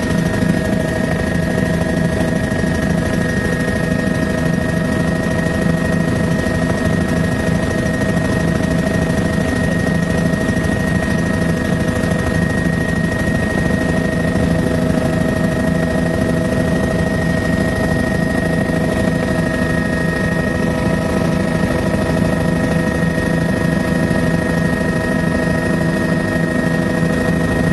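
Helicopter in flight heard from inside the cabin: a steady, loud drone of engine and rotor with several constant tones held throughout.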